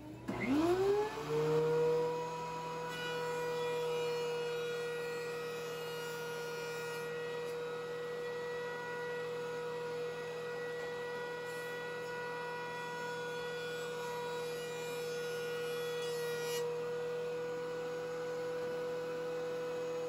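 A dust collector and a DeWalt DW734 thickness planer are switched on, their motors spinning up within the first second to a steady high whine over a lower hum. For a long stretch in the middle, boards are fed through and planed.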